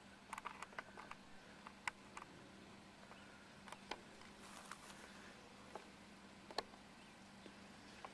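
Near silence with a faint steady hum and scattered short clicks and ticks, and a brief faint hiss about halfway through.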